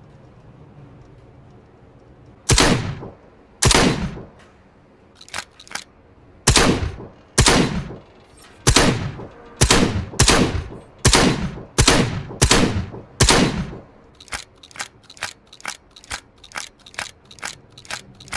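Combat shotgun sound effect: loud single shots, each with a short ringing tail, fired about once a second, beginning a couple of seconds in. Near the end a faster string of quieter, shorter shots follows at two to three a second.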